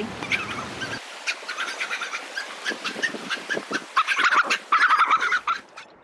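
Chirping animal calls, a quick run of short high notes with clicks between them, busiest and loudest about four to five and a half seconds in.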